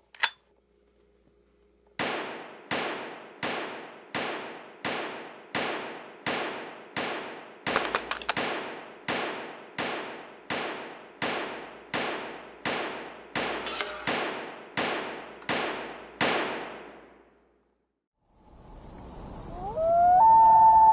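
A click, then a regular series of sharp struck hits, each ringing out for about half a second, roughly three every two seconds, stopping about seventeen seconds in. Near the end a swelling sound with a gliding tone rises to become the loudest part.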